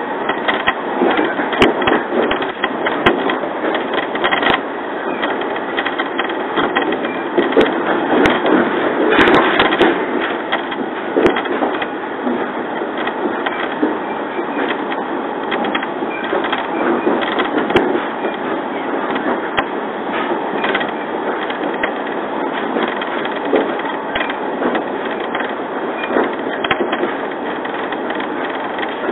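JR 115 series electric train running, heard from inside the passenger car: a steady rumbling noise of the wheels on the rails with scattered sharp clicks, a little louder around a third of the way in.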